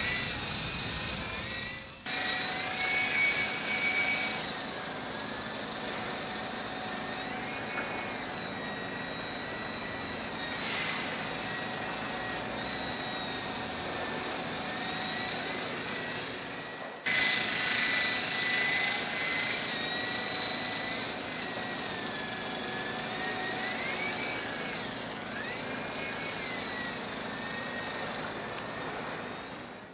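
Electric motors and rotors of a small Silverlit toy RC helicopter in flight, giving a high whine whose pitch rises and falls as the throttle changes. The sound jumps louder abruptly twice, about two seconds in and again about halfway through.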